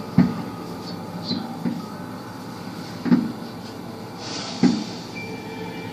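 Aerial firework shells bursting in the distance: a loud boom just after the start, another about three seconds in and a third a second and a half later, with two fainter pops between the first and second.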